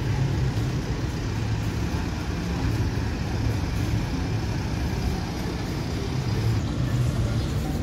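Bus diesel engine running, a steady low rumble.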